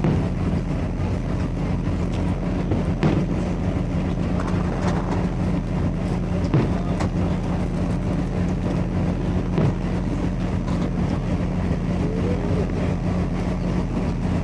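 Fireworks bursting, a few sharp thuds about three seconds apart, over a steady low hum.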